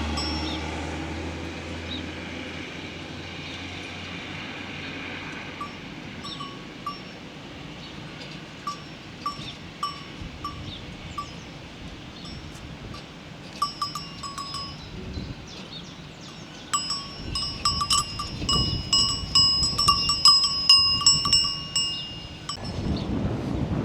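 Cowbells on grazing cattle clanking irregularly. They become busier and louder in the last several seconds, then stop abruptly near the end. A low rumble fades away at the start.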